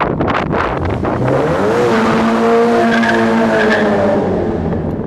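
Toyota GT86's flat-four engine revved hard as the car launches through a concrete tunnel: the revs climb about a second and a half in, hold high and steady, then fade near the end, with tyre squeal from wheelspin.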